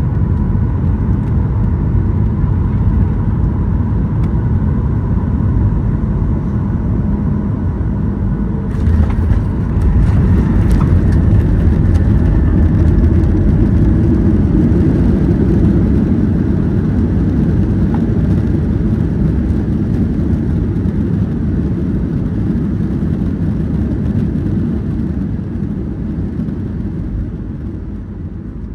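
Boeing 737-900ER landing, heard from inside the cabin: a steady roar of air and engines. About nine seconds in, touchdown brings rattles and a louder rumble as the jet brakes. The roar slowly dies away near the end as the airliner slows.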